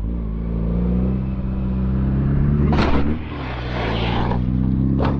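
Kawasaki Ninja ZX-6R 636 inline-four sportbike engine running at fairly steady revs, rising slightly in the first second. Two short bursts of noise cut in, one about halfway through and one near the end.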